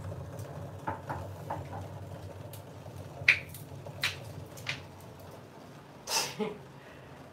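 Scattered light clicks and knocks from things being handled at a kitchen stove, over a steady low hum. The sharpest click comes about three seconds in, and a longer scraping rustle comes near the end.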